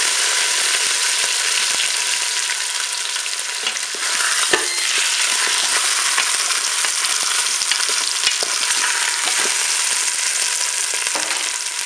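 A tied pork roast sizzling in hot oil in the bowl of a Cookeo multicooker on its browning setting: a loud, steady frying hiss. About four and a half seconds in, a wooden spatula knocks and scrapes against the pot as the roast is moved.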